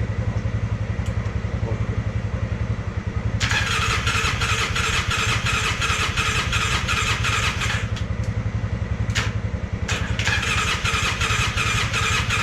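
Polaris Sportsman 600 ATV engine being cranked over and not catching, a fast, even low pulsing with a harsher rattling layer that comes in about three seconds in, drops out near eight seconds and returns around ten seconds. The engine has almost no compression.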